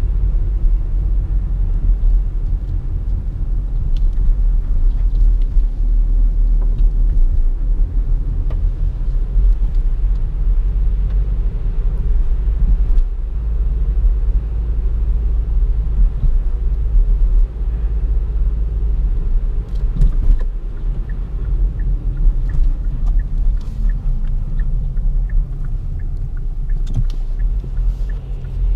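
Cabin noise inside a Kia Optima SW 1.7 CRDi, a turbodiesel four-cylinder estate, driving at town speed: a steady low rumble of engine and tyres. Faint regular ticks come in over the second half.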